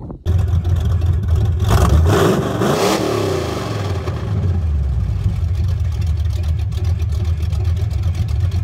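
Pickup truck engine running loud and rough, revved once about two seconds in and then settling back to a steady, deep idle.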